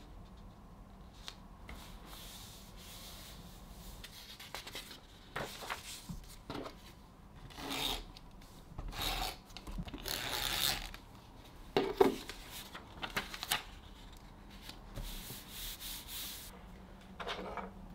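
Paper rustling and rubbing as printed sheets are handled and pressed into a spiral-bound notebook, in short irregular strokes, with one sharp tap about two-thirds of the way through.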